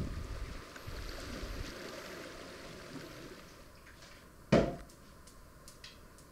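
Wind and sea rumble on the microphone fading out, then a quiet kitchen with a single sharp clunk, like a pan or dish set down on the counter, about four and a half seconds in.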